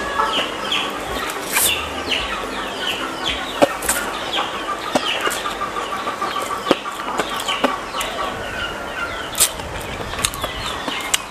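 Chickens clucking, with short high chirps repeating throughout and a quick run of clucks in the middle. Over it come slurping and chewing of instant noodles and a few sharp clicks of chopsticks.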